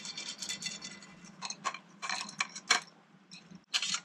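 Cooking utensils and cookware clinking lightly, in irregular clusters of short clicks.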